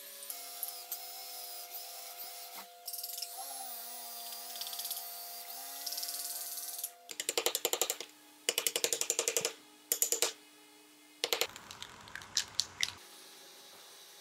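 Electric hand drill boring into a hardwood tail-light housing, its motor running steadily with the pitch dipping as the bit cuts. From about seven seconds, quick runs of sharp clicks as a hand chisel pares out the wood between the drilled holes.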